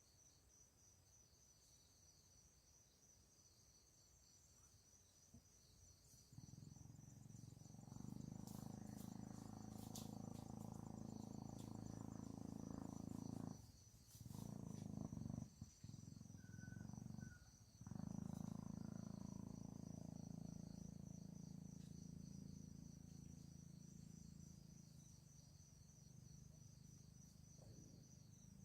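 Insects, crickets by their sound, trilling steadily in a faint high pulsing chirr. A low hum enters about six seconds in, swells, cuts out briefly a few times, then fades away near the end.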